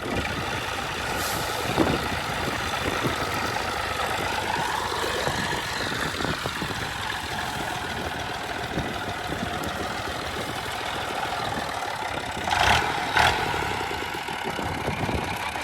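Old combine harvester's diesel engine and machinery running steadily; the engine pitch rises and falls again a few seconds in. Two short sharp sounds, about half a second apart, come near the end.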